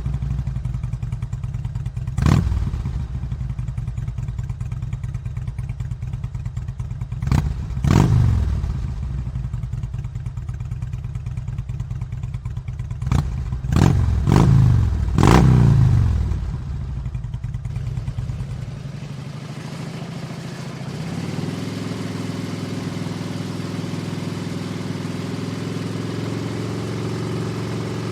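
Motorcycle engine idling with a low, steady beat, blipped by a series of short throttle revs in the first 16 seconds. From about 19 to 21 seconds in, the note changes to a smoother, steadier running sound.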